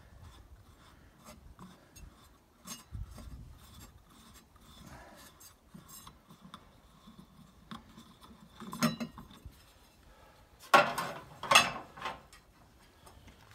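Hands working the air filter housing on a Bobcat 763 skid-steer: scattered clicks and rubbing of the cover and filter, with a louder scrape about nine seconds in and two more near the end as the filter is pulled.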